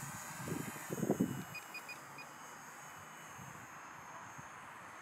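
Distant high-pitched whine of a small electric RC warbird's motor and propeller, fading over the first couple of seconds, with wind gusting on the microphone near the start. Four short electronic beeps come about a second and a half in.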